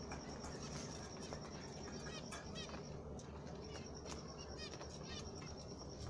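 Zebra finches calling quietly: scattered short, nasal chirps from several birds. A steady, fast-pulsing high trill runs behind them and drops out briefly about three seconds in.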